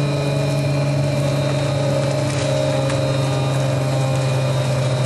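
Krysteline K500 Imploder glass-processing machine running: a loud, steady mechanical hum with a low drone and several constant higher tones.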